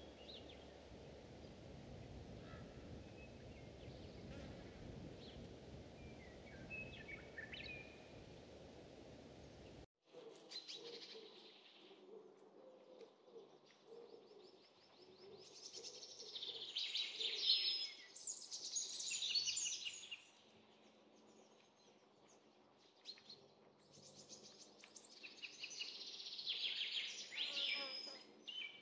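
Steady low road and engine rumble from a moving car for the first ten seconds. It cuts off abruptly and gives way to birds calling in rapid, high trills, loudest about two-thirds through and again near the end.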